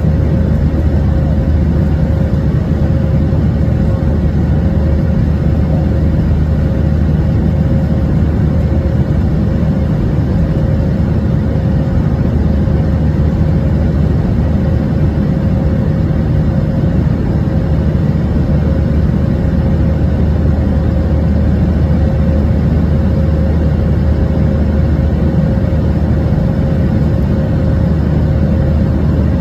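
Jet airliner's turbofan engines and rushing air heard inside the passenger cabin during the climb after takeoff: a steady low rumble with a faint constant hum above it.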